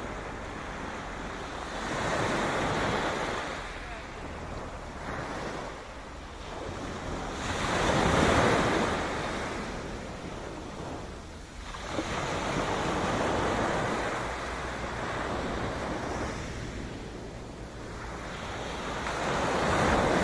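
Sea waves washing in, the surf swelling and fading every five or six seconds, loudest about eight seconds in and again near the end, over a steady low rumble of wind on the microphone.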